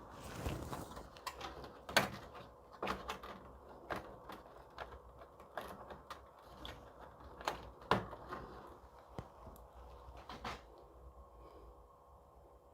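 Cables and small plastic connectors being handled and routed inside a computer case: scattered light clicks and knocks with soft rustling, about a dozen sharp ticks spread irregularly, the loudest about two seconds in and again about eight seconds in.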